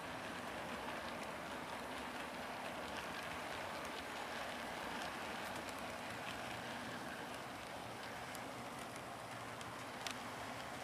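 HO scale model train rolling along the track: a steady rushing of wheels on rail, with faint scattered clicks and one sharper click near the end.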